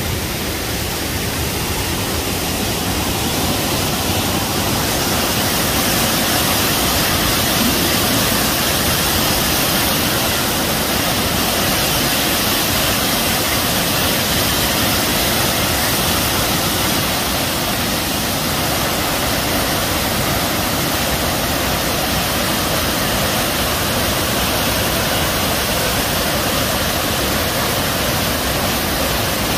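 Mountain waterfall pouring down a rock face: a loud, steady rush of falling water, growing a little louder a few seconds in.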